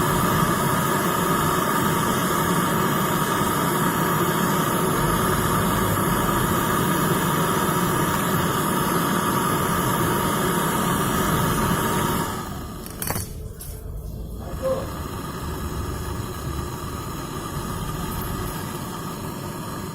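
Motor-driven compressor running steadily with a hum, as used to pull vacuum on a refrigerator's sealed system before gas charging. About twelve seconds in it drops noticeably in level, with a sharp click, then runs on more quietly.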